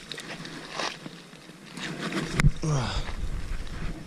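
Faint handling noises, then a sharp knock about two and a half seconds in, followed at once by a short falling vocal sound from a person.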